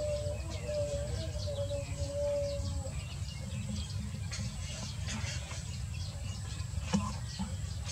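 Chicks peeping repeatedly in short high chirps over a steady low rumble, with a long held call in the first three seconds.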